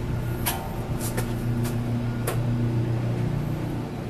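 Steady low drone of a moored high-speed catamaran ferry's engines running at idle, with about five short sharp clicks over it in the first half.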